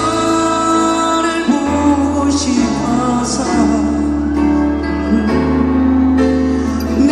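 Male vocalist singing a ballad-style melody live into a handheld microphone over amplified backing music, with long held, gliding notes.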